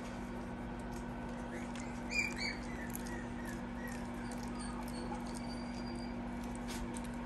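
Pomsky puppy giving a few short, high squeaks about two seconds in, with a couple of fainter ones just after, over a steady low hum.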